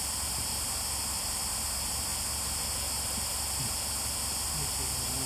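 Steady hiss with a low hum underneath, even in level throughout, with no distinct events.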